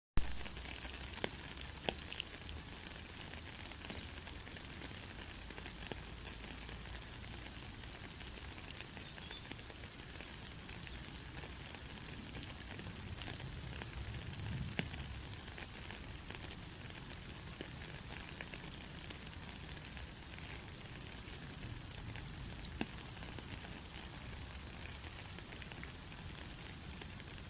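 Steady white-noise hiss for lulling a baby to sleep, with scattered faint crackles and ticks through it.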